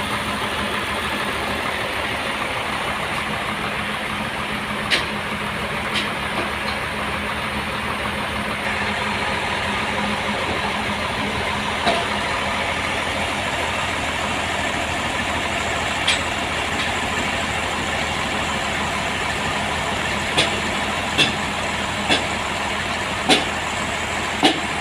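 Sawmill machinery running steadily, with a low constant hum and a few sharp knocks, most of them in the last few seconds.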